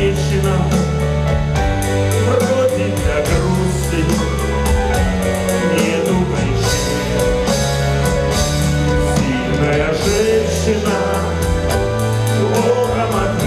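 Live band playing a song: a man singing over acoustic guitar, keyboards, electric guitar, bass and drums with a steady beat.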